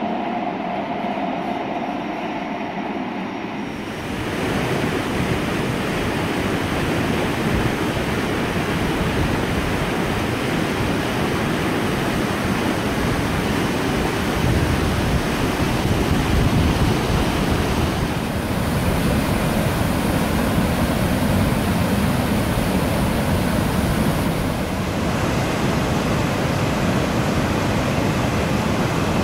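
A train running for the first four seconds or so. Then the steady rushing of a mountain stream and waterfall: white water pouring over rocks, loud and unbroken.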